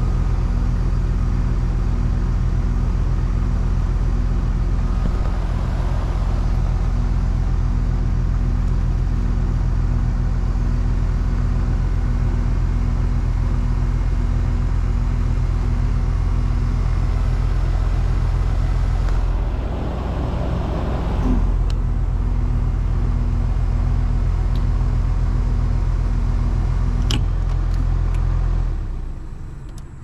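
Rheem package heat pump running with its condenser fan motor turning: a steady mechanical hum, until the unit shuts off about a second before the end. The fan motor runs normally, and the technician puts its earlier failure to run down to the control board rather than the motor.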